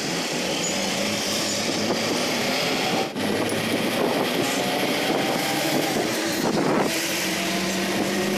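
A moving bus heard from inside, with a steady drone of engine and road noise. There is a brief drop in the sound a little after three seconds in.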